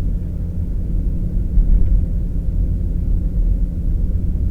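Steady low rumble of a car's engine and tyres, heard from inside the cabin while driving on snow-covered roads.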